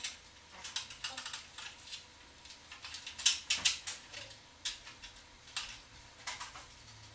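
Aluminium step ladder clicking and clattering as a man climbs down it, a run of sharp knocks and rattles, loudest about three seconds in.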